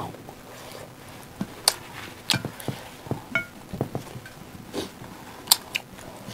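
Close-up eating sounds from people eating rice and dal with their hands: irregular wet smacks and clicks of chewing and lips, a dozen or so spread through the moment.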